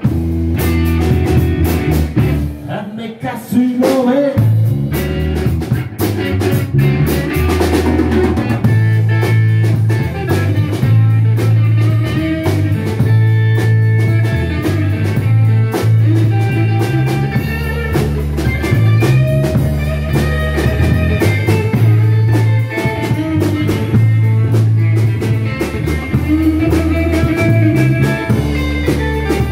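Blues band playing together: electric bass guitar, drum kit and electric guitar. The bass drops out for about two seconds a few seconds in, then the band comes back in and plays on steadily.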